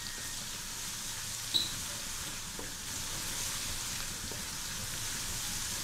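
Garlic sizzling in hot oil in a metal pot while being stirred with a spoon, cooked only until fragrant and not browned. There is a steady frying hiss and one sharp clink about a second and a half in.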